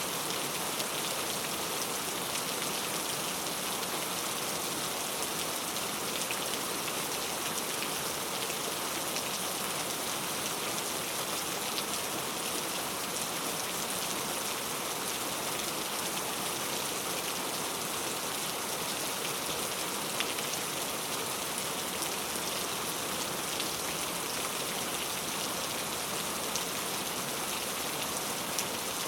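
Steady rain falling, a constant even patter with a few slightly louder drops standing out.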